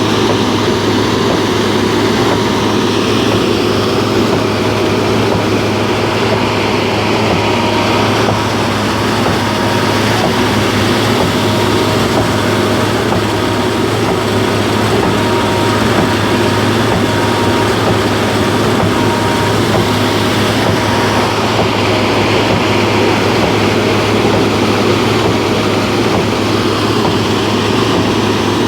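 Concrete pump's diesel engine running steadily under load, a continuous heavy machine drone with no breaks.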